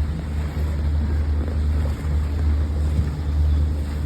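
A boat's motor running steadily underway, a constant low hum, with wind buffeting the microphone.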